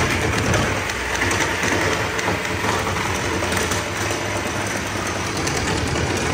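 Electric jigsaw running steadily as it cuts out the traced bottom panel of a wooden boat.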